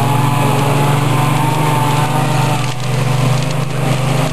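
An engine running steadily with a low hum, with a few brief clicks and crackles in the second half.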